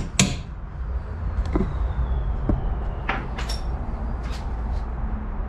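One last hammer tap on the front suspension just after the start, then a few scattered light clicks and knocks of tools being handled, over a steady low rumble.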